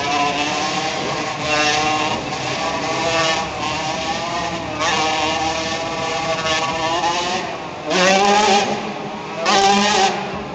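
Several motorcycle engines running and revving together as three bikes circle inside a steel-mesh globe cage, their pitches wavering up and down. Near the end two louder revs rise in pitch.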